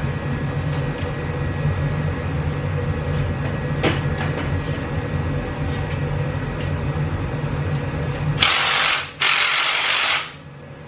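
Mechanic's tools working on the small-block Chevy V8's cylinder-head bolts: a steady low hum with occasional ratchet clicks. Near the end come two loud hissing bursts, each about a second long.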